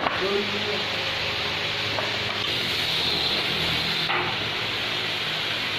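Steady rasping of wood being worked by hand, with faint voices near the start.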